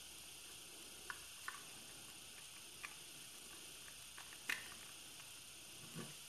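Faint clicks and taps of a screwdriver and wire being handled against a plastic timer relay socket and contactor, a handful of small clicks over a low hiss, the clearest about four and a half seconds in.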